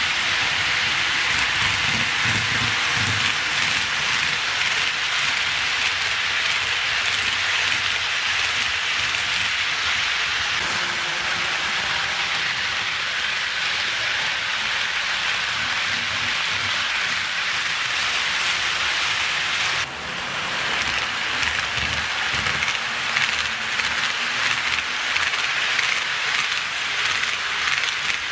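HO scale model freight train running past with its CSX diesel locomotives: a steady rattling hiss of metal wheels on the rails and the running motors, with a few low knocks. The sound changes abruptly about 11 and 20 seconds in.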